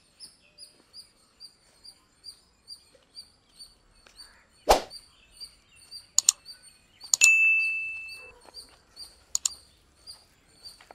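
Hands mixing a spice paste with oil in a steel plate: a few sharp knocks and clinks against the plate, the loudest about seven seconds in leaving a short metallic ring. Behind it a bird chirps steadily, about three chirps a second.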